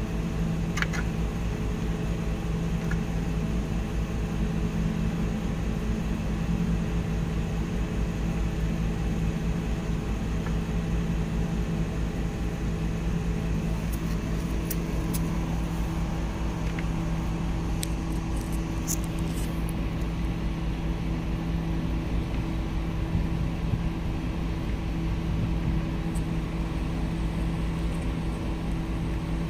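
Steady low mechanical hum of a running machine, an even drone with a few constant pitched tones, with a few faint high clicks about halfway through.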